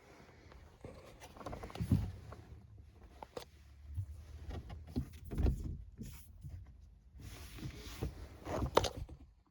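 Scattered knocks, clicks and rustling handling noises over a low rumble, the loudest knocks about two seconds in, around five and a half seconds in, and near the end.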